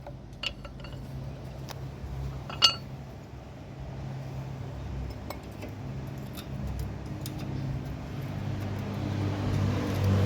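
Brake pads and tools handled on a workshop floor, giving a few sharp metallic clinks, the loudest about two and a half seconds in, over a steady low hum that grows louder near the end.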